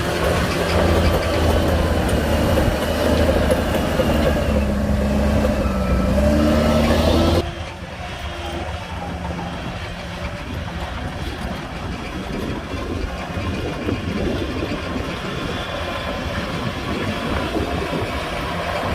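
Heavy diesel engine of earthmoving machinery running loud, its pitch dipping and rising about five to seven seconds in. About seven seconds in the sound drops suddenly to a quieter, steady engine sound.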